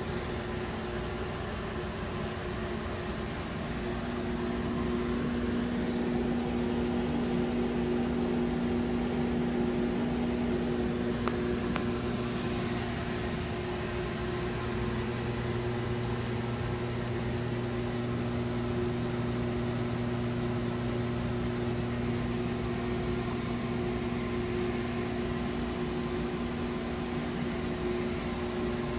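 Steady electric hum of reef-aquarium pumps and filtration equipment: a low drone with a constant hiss over it.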